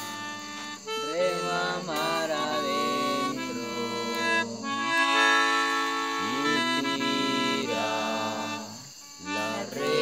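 Electronic keyboard playing held chords with an accordion-like reed tone, part of a worship song. A voice sings sliding phrases over it twice, with a short break near the end.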